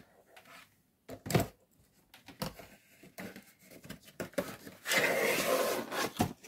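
Objects being handled on a desk: a single sharp knock about a second in, a few light taps, then about a second of rustling and sliding near the end as a playmat and a box are shifted about.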